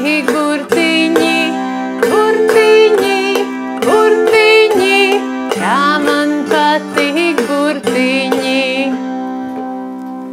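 Kokle (Latvian box zither) being plucked, its open strings ringing steadily under the melody, with a voice carrying a wordless tune over it. The playing stops about nine seconds in and the strings ring out.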